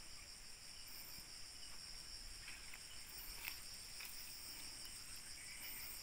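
Faint, steady chorus of insects chirring in several high-pitched tones, with a couple of faint clicks partway through.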